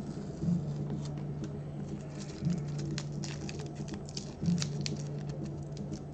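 Low-tack tape being peeled off watercolour paper, a rapid crackle of small ticks. Beneath it runs a steady low hum that swells about every two seconds.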